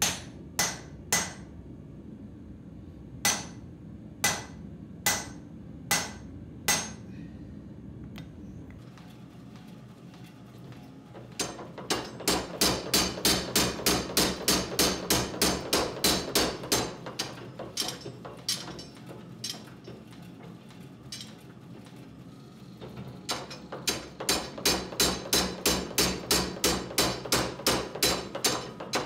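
A hand hammer strikes a handled top tool set on red-hot steel on an anvil: about eight separate blows. Then a power hammer pounds the glowing axe blank in quick, evenly spaced blows, drawing out the steel, in two runs with a pause between them.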